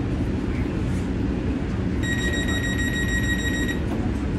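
Light-rail car's door-closing warning tone: one steady high beep lasting just under two seconds, starting about two seconds in, signalling that the doors are about to close. Under it runs the steady low hum of the standing train car.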